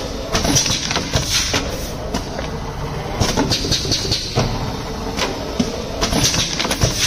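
MG-130QW small pneumatic premade-bag weighing and packing machine running: continuous clatter and sharp clicks from its air cylinders and bag grippers, with short hisses of compressed air every few seconds.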